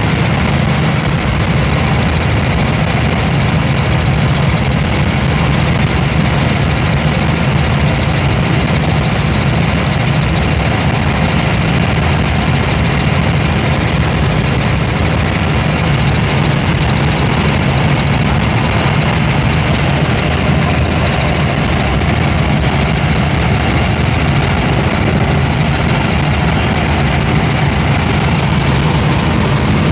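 Robinson R44 Raven I helicopter in flight heard from inside the cabin: loud, steady drone of its six-cylinder Lycoming piston engine and rotor, unchanging throughout.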